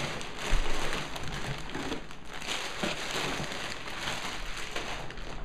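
Packaging rustling and crinkling as a puppet is handled and pulled out of it, with a single knock about half a second in.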